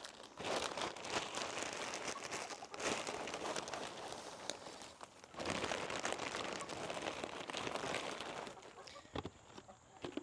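Dry rustling and crinkling dotted with small crackles, in two long stretches split by a short pause about five seconds in, dying down near the end.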